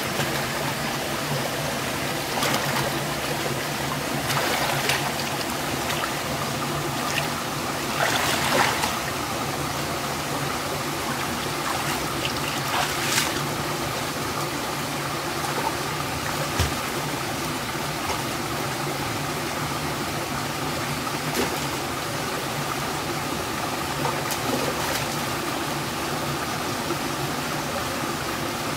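Shallow rocky stream trickling steadily over stones, with a few short splashes of water as a person wades and moves in it, the biggest about a third of the way through.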